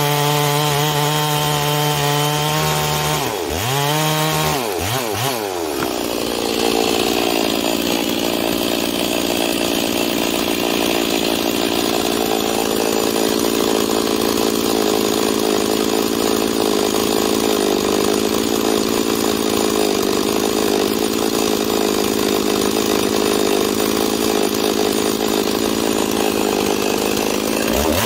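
Ported Stihl 046 two-stroke chainsaw running hard in a cut, its engine speed swinging down and back up about four seconds in as it comes out of the wood, then running steadily out of the cut until its pitch sweeps again near the end as it goes back in.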